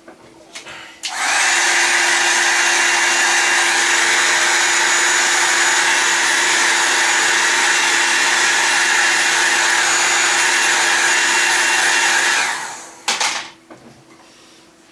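Heat gun blowing hot air: a steady fan hiss with a low hum that starts about a second in, runs for about eleven seconds and winds down, followed by a short knock. It is warming the adhesive under the phone screen so the screen can be pried loose.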